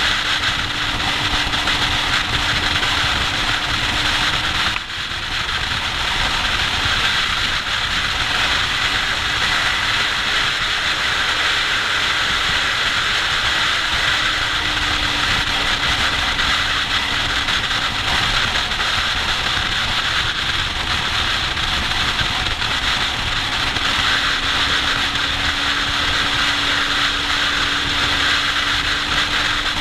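Motorcycle cruising at steady motorway speed, heard on board: heavy wind rush over a steady engine note, with a brief drop in level about five seconds in.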